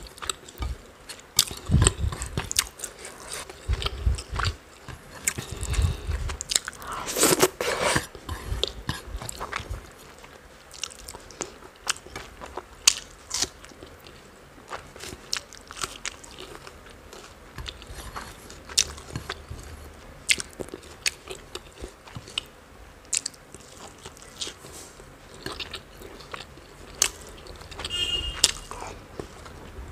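Close-up mouth sounds of a person chewing rice mixed with spicy chicken curry: soft wet chewing with many small clicks. A longer, louder rustle comes about seven seconds in.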